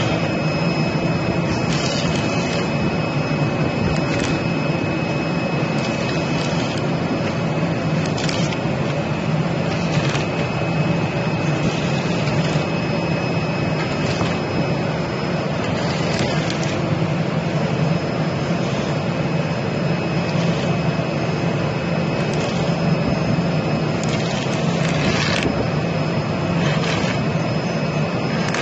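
CNC flatbed knife cutting machine cutting corrugated cardboard: a steady machine drone with a low hum and a thin high whine, broken every couple of seconds by short high hisses as the cutting head works the board.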